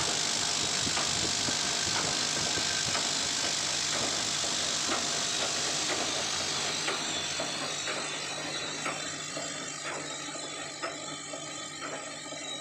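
Automatic camphor-tablet pouch packing machine running. Its vibratory bowl feeder rattles and hisses with tablets jostling against the steel bowl, loudest in the first half, then the hiss fades and the packing head's clack, about once a second, over a steady low hum comes to the fore.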